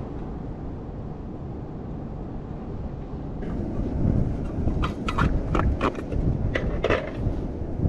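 Steady wind rumble on the microphone with ocean surf behind it, and six sharp cracks or knocks close together in the second half.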